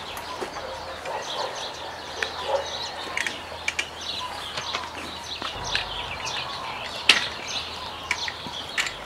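Birds chirping and calling in a steady scatter of short calls, with occasional sharp clicks, one louder click about seven seconds in.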